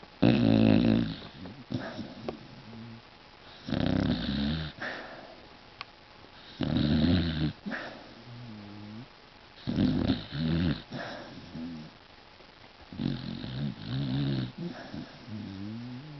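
Beagle snoring in its sleep: five loud, rattling snores about three seconds apart, with fainter wavering, whistly breaths between them.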